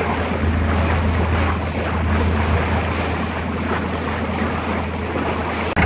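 Motorboat under way at sea: a steady low engine drone under the rush of water along the hull and wind buffeting the microphone. The sound breaks off abruptly just before the end.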